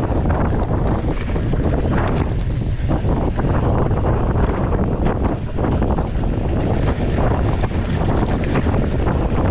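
Wind buffeting the microphone over the rumble and rattle of a mountain bike's tyres and frame on a dirt forest trail at speed, with many small knocks from bumps. A brief high squeak about two seconds in.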